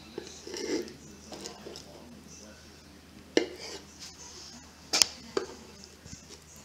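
Kitchen knife working a flathead fillet on a plastic cutting board: quiet scraping with a few sharp knocks of the blade or board, the loudest about three and a half and five seconds in.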